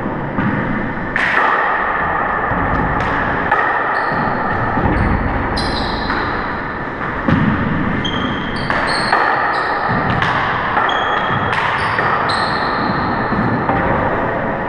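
A handball rally in an enclosed four-wall court: the small rubber ball smacks off the walls and hardwood floor about once a second, each hit ringing in the court, with short high sneaker squeaks on the wooden floor between hits.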